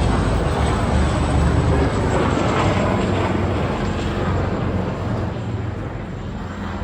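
Wind buffeting the microphone: a loud, uneven rumble that eases off near the end.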